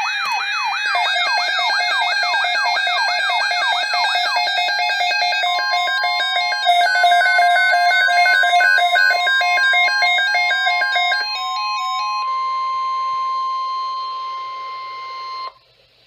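Several weather alert radios sounding their alarms at once: a warbling siren sweeping up and down about three or four times a second, layered with fast electronic beep patterns. About five seconds in a single steady tone joins, the 1050 Hz NOAA Weather Radio alert tone that signals a weather watch or warning, and everything cuts off suddenly near the end.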